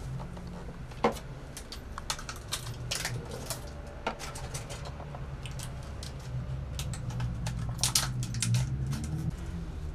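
Irregular light clicks and taps of small parts and tools being handled on a workbench, with a sharper knock about a second in, over a steady low hum.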